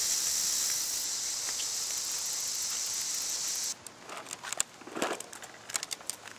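Steady high-pitched insect chorus that cuts off suddenly a little past halfway. After it come scattered light clicks and knocks.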